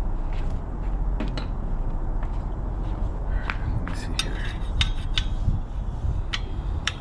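Metal tools clinking and tapping against bicycle parts during disassembly: irregular sharp clicks that come thickest in the second half, over a steady low hum.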